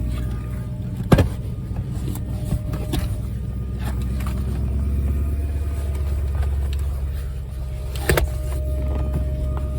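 BMW E38 740i's V8 running at idle: a steady low hum with a thin, steady whining tone over it. The uploader puts this sound down to the fuel pump straining at full power against a clogged fuel filter. Two sharp knocks come about a second in and near the end.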